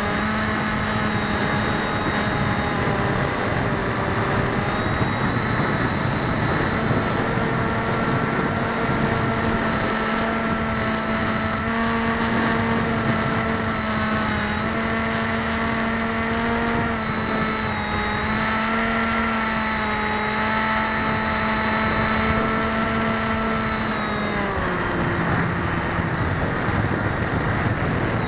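RC aircraft's motors and unbalanced propellers whining steadily in flight, recorded onboard over wind noise. The pitch shifts slightly with throttle and drops away about 24 seconds in.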